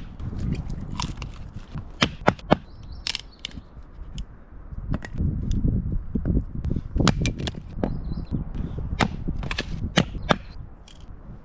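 Hatchet chopping and splitting firewood: a dozen or so sharp cracks and knocks at uneven intervals, over a low rumble.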